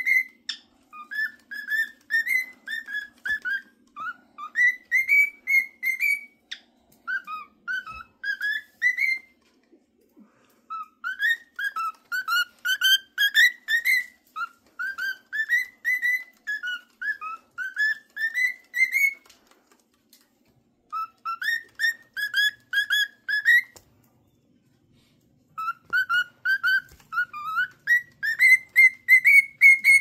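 Cockatiel whistling a tune: quick runs of short, clear whistled notes, several a second, in phrases broken by pauses of a second or two.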